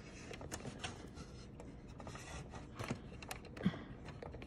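Faint scratching and scattered small clicks of a long cotton swab being worked against the plastic parts inside a DVD/VCR combo's disc drive while the laser lens is wiped with isopropyl alcohol.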